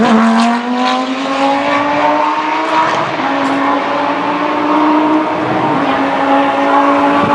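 Lamborghini Gallardo GT3's V10 race engine under power on track. Its note climbs gradually over the first three seconds, then holds steady.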